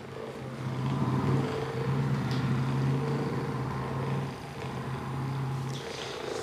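Handheld electric massager running with a steady hum while it is worked over the muscles to relax them after the adjustments; it stops shortly before the end.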